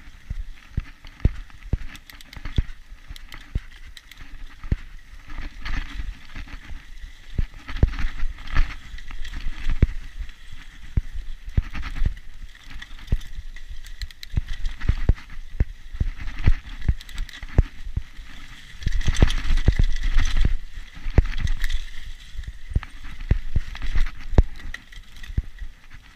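Mountain bike on a rough dirt singletrack: irregular knocks and rattles as it bounces over roots and rocks, over a steady tyre rumble. The rumble gets louder for a second or two about three quarters of the way through.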